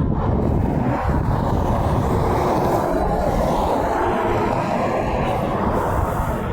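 Steady rumble of heavy road traffic: engine and tyre noise from passing vehicles, with no horn sounding.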